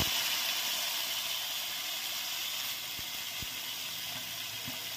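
Wet ground spice pastes sizzling in hot mustard oil in a kadai: a steady hiss that slowly eases off.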